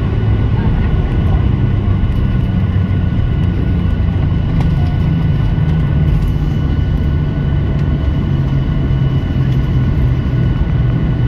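Cabin noise of a Boeing 737-700 on its landing rollout, heard over the wing: its CFM56-7B engines and the rolling airframe make a loud, steady low rumble, with a few thin steady whines above it.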